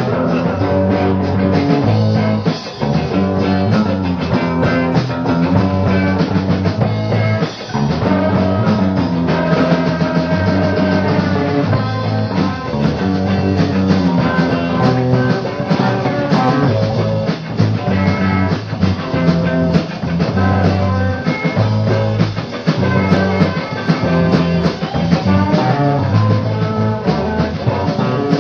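Live rock band playing an instrumental passage: guitars over bass guitar and a drum kit with a steady beat.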